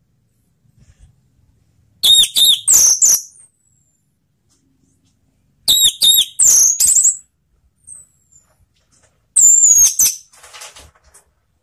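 Orange-headed thrush singing: three short phrases of quick, high, sliding notes a few seconds apart, with silence between them.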